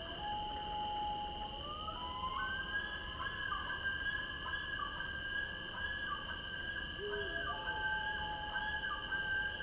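Eerie night-forest ambience: a steady high insect drone, with long drawn-out whistling tones that hold and then slide between pitches over a faint low rumble.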